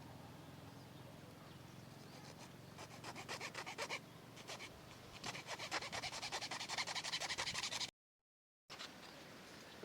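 Fast back-and-forth scraping strokes on a hard material, in two spells, by hand; the sound cuts out abruptly near the end.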